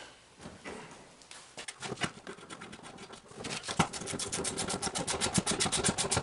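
Scattered knocks of the truck seat being handled, then about three and a half seconds in a ratchet wrench starts clicking rapidly and evenly, around a dozen clicks a second, as a seat bolt is run in.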